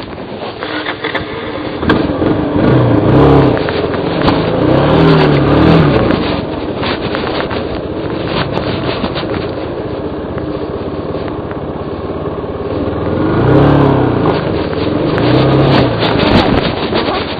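Dirt bike engine revving hard in four rising-and-falling surges, under load on a steep rocky climb, with scraping and sharp clicks throughout.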